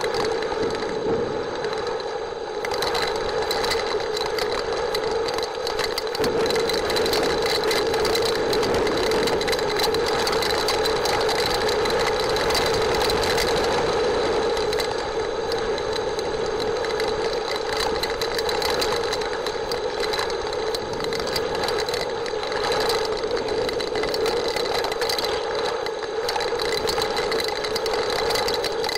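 Heavy rain falling on the nest camera and its microphone: a dense, steady crackle of drops, with a steady hum underneath.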